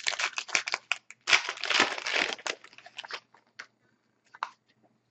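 Foil wrapper of a trading-card pack crinkling and tearing as it is opened, dense for about two and a half seconds, then a few light ticks as the cards are handled.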